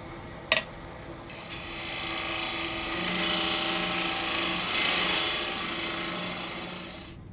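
A beading tool cutting a bead into a spinning wooden disc on a Robust wood lathe: a sharp tap about half a second in, then a scraping hiss of shavings coming off that swells and dies away shortly before the end, over the steady hum of the running lathe.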